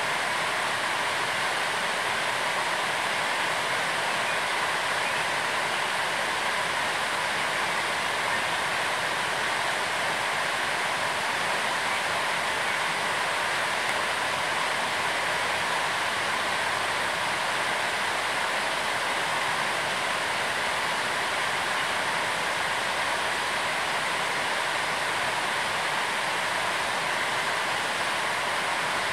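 A steady, even rushing noise, unchanging throughout.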